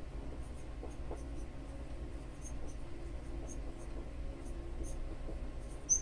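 Whiteboard marker writing on a whiteboard: faint, short squeaks and scratches with each stroke of the letters, over a low steady hum.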